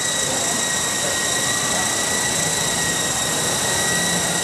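Small radio-controlled coaxial helicopter's electric motors and rotors running, a steady high-pitched whine over a broad rushing noise that holds even throughout.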